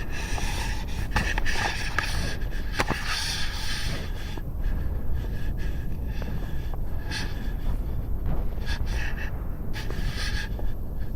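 A person breathing hard close to the microphone, in irregular noisy breaths, over a steady low rumble of wind or handling noise. There is one sharp click about three seconds in.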